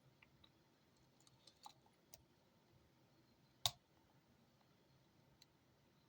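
Faint metallic clicks of a half-diamond pick and tension wrench working the pins of an Abus Titalium padlock, with one sharper click about three and a half seconds in.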